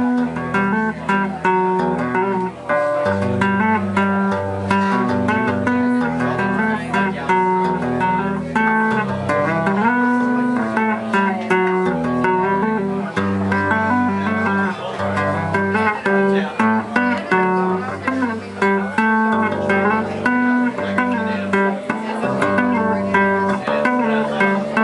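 Electric bass guitar played with the fingers: chords and melody notes sound over a moving low bass line, in continuous flowing phrases.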